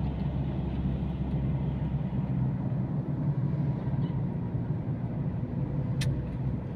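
Steady low rumble of a car's engine and tyres heard from inside the cabin while driving, with a single short click about six seconds in.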